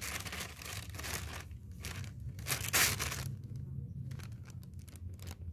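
Thin textured plastic bag crinkling and rustling as hands open and handle it, in a run of bursts for about three seconds, then only faint light rustles.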